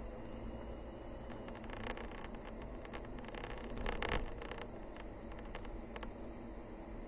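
Car driving along a narrow paved mountain road: a steady low rumble from the engine and tyres, with scattered ticks and a louder patch of crackling about four seconds in.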